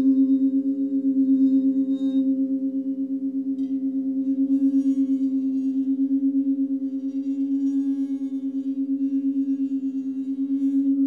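Sustained sound-healing drone of several steady, low tones layered together, in the manner of a singing bowl, wavering in a fast, even pulse. Faint high shimmering sounds come and go over it from a few seconds in.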